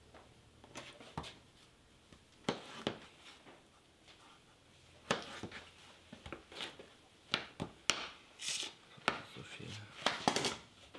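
Kitchen knife cutting a cucumber into sticks on a wooden cutting board: about fifteen irregular knocks of the blade on the board, more of them in the second half.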